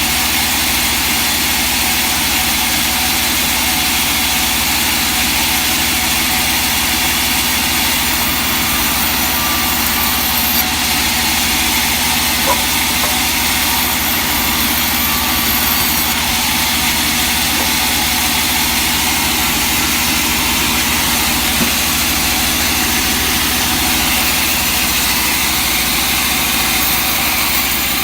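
Sawmill machinery running steadily: a continuous engine-like hum with a constant high hiss, no clear change in load.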